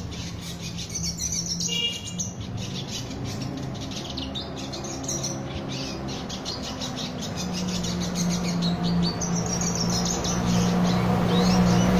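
Male red siskin singing a fast run of high chirps and trills. A steady low hum runs underneath and grows louder toward the end.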